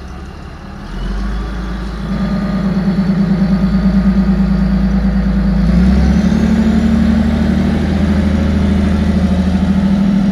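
Caterpillar 972G wheel loader's diesel engine running, picking up revs about two seconds in and again near six seconds, when a high whine rises with it. It drops back right at the end.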